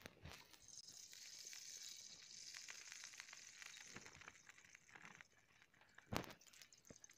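Cooking oil on a flat iron tawa over a wood fire, sizzling faintly with small crackles as it heats. A single sharp knock comes about six seconds in.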